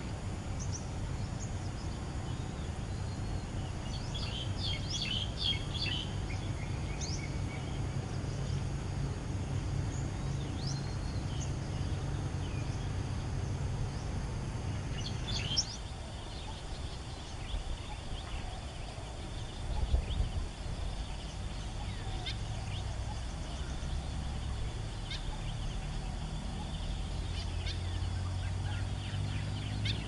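Small birds calling with short high chirps, a cluster about four to six seconds in and scattered calls after, over a steady low rumble of background noise. A brief low thump comes about twenty seconds in.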